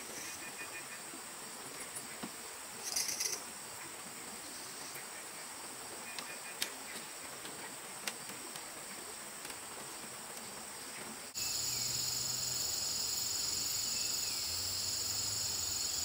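Steady high buzzing of a forest insect chorus, with a few light knocks and taps in the first half. About 11 seconds in, the insect drone suddenly becomes louder and fuller.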